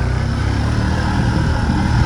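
A four-wheeler's engine running steadily under way.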